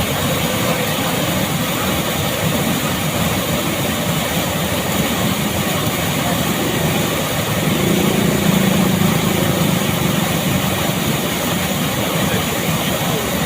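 Water gushing steadily from a drilled artesian well under its own pressure, with no pump driving it. A faint low hum rises briefly about eight seconds in.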